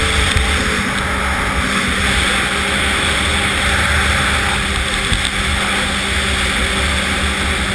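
Polaris Assault snowmobile's two-stroke engine running steadily under way, its pitch holding level with no revving up or down.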